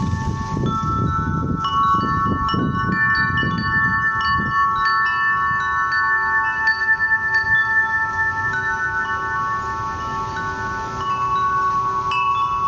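Metal wind chimes ringing, many tones struck one after another and overlapping as they fade. A low rumbling noise runs under them for the first few seconds.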